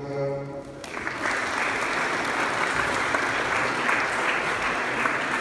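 Audience applauding steadily, starting about a second in as a man's voice breaks off.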